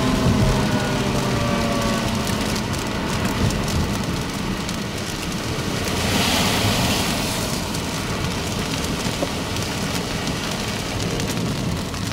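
Rain falling on a vehicle: a steady hiss over a low rumble, with a swell of louder hiss about six seconds in.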